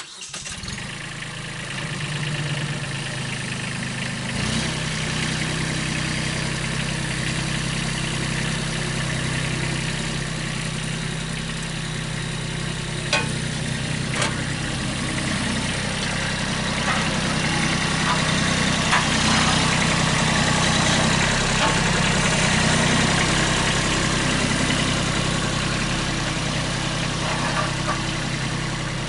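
An engine running steadily at a fairly even speed, with a couple of sharp clicks about halfway through.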